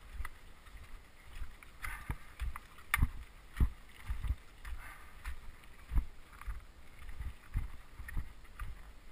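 A wheeled trailer jolting over stones on a rough track as it is pushed uphill: irregular knocks, thumps and rattles, about one or two a second.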